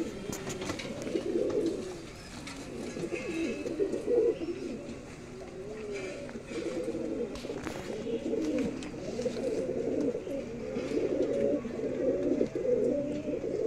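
A flock of domestic pigeons cooing continuously, with many low, warbling coos overlapping, and a few short sharp clicks among them.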